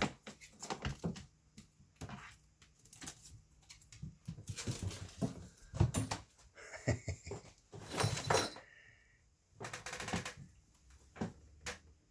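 A cat at play: irregular taps, scrapes and rustles as it paws at and pushes things about.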